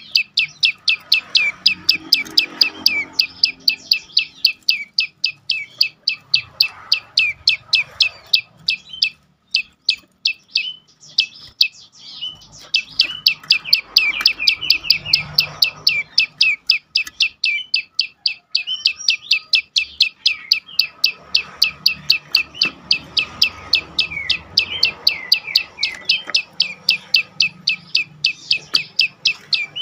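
Prenjak lumut calling in a rapid, unbroken series of sharp, high chirps, about three a second, with a short lull about ten seconds in.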